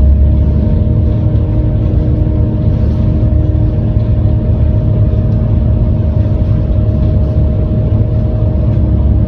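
Volvo B7TL double-decker bus's six-cylinder diesel and drivetrain running steadily under way, heard on board as a loud low rumble. A steady whine rides over it at a constant pitch.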